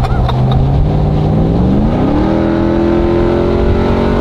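Ram TRX's supercharged 6.2-litre Hemi V8 through a Corsa Extreme exhaust, accelerating. The engine note climbs in pitch from about a second in and then holds high and steady.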